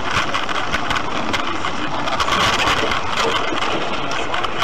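Heavy rain striking a car's windshield and roof, heard from inside the car: a loud, steady hiss crowded with sharp ticks of drops hitting.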